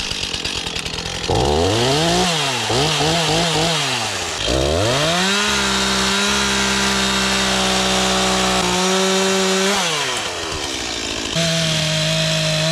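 Two-stroke chainsaw running: it idles, is revved up and down several times, then is held at high revs for several seconds. It drops back toward idle about ten seconds in and is revved up again near the end.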